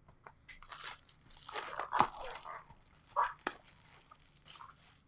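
A sealed trading-card box being opened by hand: its wrap and packaging torn and crinkled in irregular rustling strokes, with a sharp snap about two seconds in.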